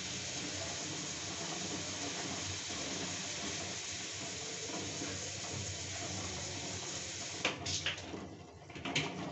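Eggs boiling in a stainless steel pot of water at a rolling boil: a steady bubbling hiss. Near the end it gives way to a few sharp clicks.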